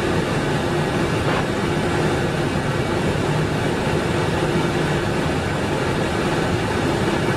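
Steady drone and rush of an Airbus A320 in flight, with a low, even hum underneath.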